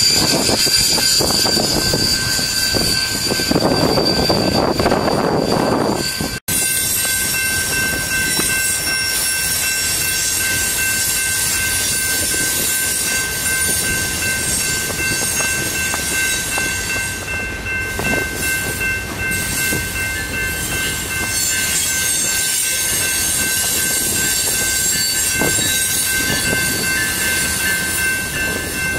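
Freight train rolling past close by, with wheels clacking over the rail joints. About six seconds in the sound cuts to a more distant freight train passing, with steady high-pitched ringing tones over the rumble.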